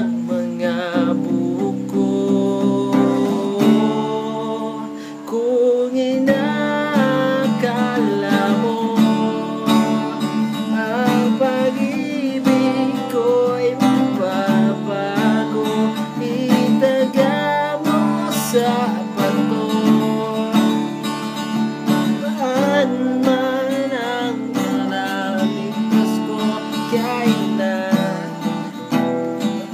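Acoustic guitar music, strummed chords with a wavering melody line over them, playing steadily throughout.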